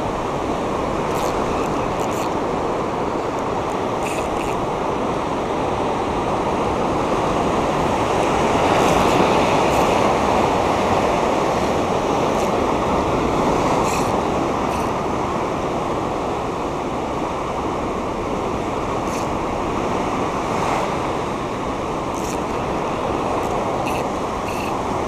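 Rough ocean surf churning and breaking against a rocky lava shoreline, a steady rush that swells a little about nine seconds in, with a few faint clicks over it.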